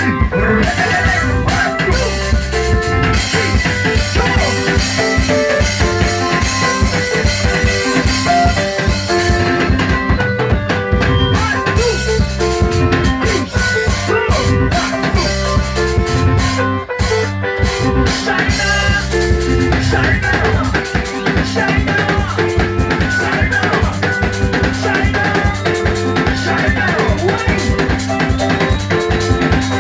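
A band playing an instrumental: held keyboard notes over a drum kit with a steady beat, the cymbals dropping out briefly twice.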